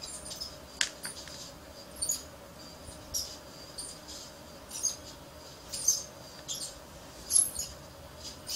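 Faint, irregular scratchy clicks and ticks of fingers and component leads working on a solderless breadboard, as a capacitor is pulled out and a 1000 µF one is pushed into the contacts. A low steady hum runs underneath.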